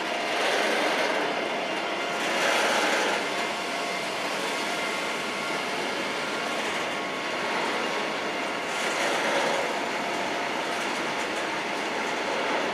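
Freight train of tank wagons rolling past: a steady sound of wheels on rail, growing louder several times as wagons pass.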